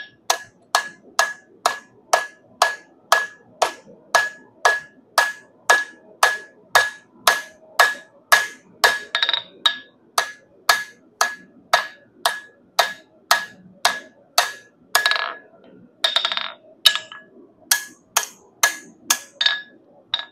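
Hand hammer forging a 3/8-inch round metal bar on an anvil to draw out a rose stem. The blows come steadily, about two a second, each with a bright anvil ring. About three-quarters of the way in there is a brief flurry of quicker, closer blows.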